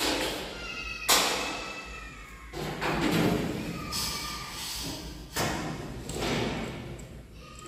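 Several knocks and thuds from a long PVC water pipe being handled and bumped into place along a wall, the sharpest about a second in and again near the end, each with a brief ring.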